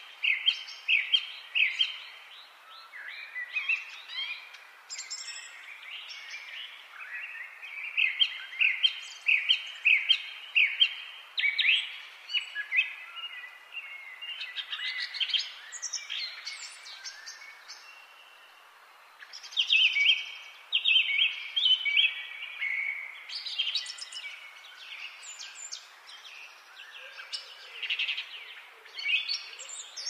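Indian ringneck parrot (rose-ringed parakeet) calling: runs of short, shrill chirps, several a second, in bouts with pauses between.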